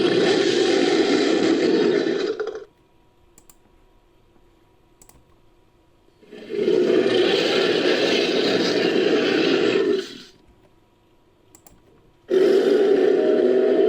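Made-up Skorpiovenator dinosaur roar sound effects, mixed from other dinosaur and creature roar recordings: one roar ends about two and a half seconds in, a second runs for about four seconds in the middle, and a third starts near the end, with faint clicks in the quiet gaps between them.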